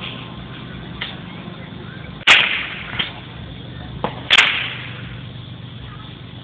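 Firecrackers exploding: two loud, sharp bangs about two seconds apart, with a few smaller pops around them.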